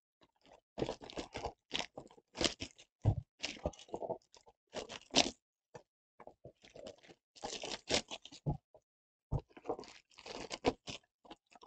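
Clear plastic shrink-wrap crinkling and tearing as it is pulled off a cardboard trading-card blaster box, in irregular spells of crackling with short pauses between.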